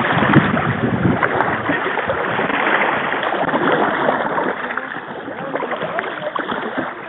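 Water splashing and rushing against the hull of a plastic kayak as it moves down a river. It gradually gets quieter toward the end.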